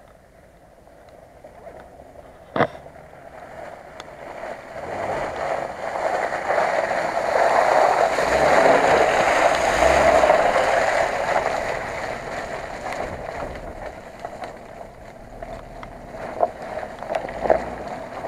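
Volkswagen Touareg SUV driving past through a wet, muddy track: the engine and the tyres churning through mud and puddles grow louder as it approaches, peak about halfway, then fade as it pulls away. A single sharp click about two and a half seconds in.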